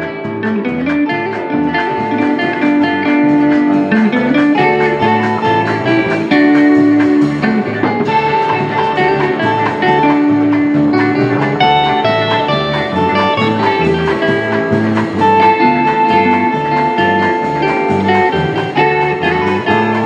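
Country band playing an instrumental, with guitar lead lines and held and sliding notes over a steady bass rhythm.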